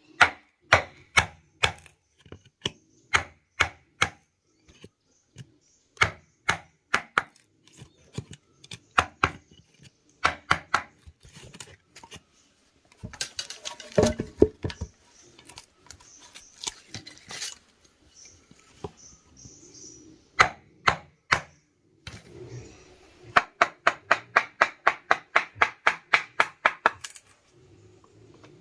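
Repeated sharp blows of a hand tool striking wood, in runs of several strikes, quickening to a fast run of about five a second near the end, with a short stretch of scraping in the middle.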